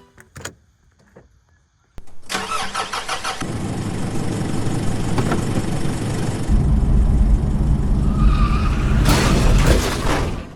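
A car engine starting suddenly about two seconds in, with quick even strokes at first, then running harder with a deep rumble from about six seconds, and cutting off abruptly just before the end.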